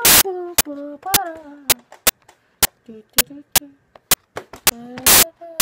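Choppy, glitching phone recording: fragments of a child's voice cut up by many sharp clicks, two short loud crackles near the start and near the end, and brief dropouts to silence.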